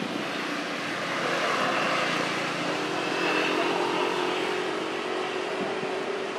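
A motor vehicle's engine running: a steady hum over a rushing noise that swells in the middle.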